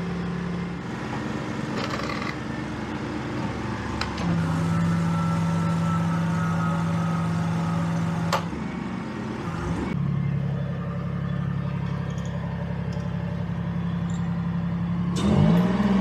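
Diesel engine of a tracked armoured vehicle fitted with a dozer blade, running steadily while the blade is worked. Its pitch shifts a few times, then rises about fifteen seconds in as the vehicle moves off.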